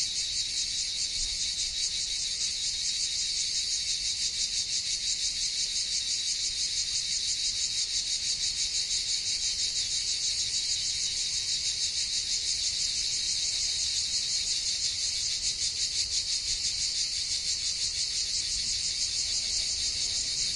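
Cicadas droning in a steady high-pitched chorus, with a fast even pulsing and no break.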